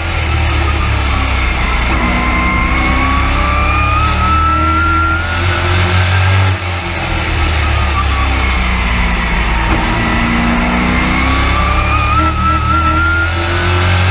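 Race truck engine heard from inside the cab at racing speed, its pitch climbing for several seconds, then dropping sharply and sinking before climbing again, twice: the driver on the throttle down each straightaway and lifting for each corner of a short oval.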